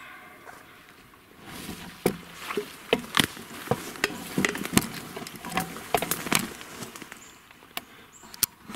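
Footsteps through dry brush and leaf litter: a couple of steps backward with twigs snapping and leaves crackling, starting about a second and a half in.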